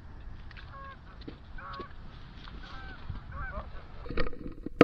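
Geese honking overhead, a string of short calls that grow louder and closer towards the end. A sharp click comes right at the end.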